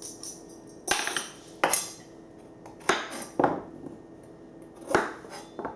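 Dishes and cutlery clattering as they are handled: about six separate clinks and knocks spread over a few seconds, some with a short ring.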